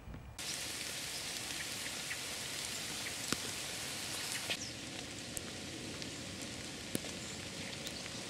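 Steady rain falling, with the odd louder drop clicking close by; it starts abruptly under a second in.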